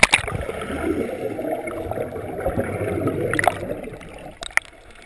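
Pool water splashing as an action camera plunges under the surface, then the muffled rushing and gurgling of water heard from underwater for about four seconds before it fades. A couple of sharp ticks near the end.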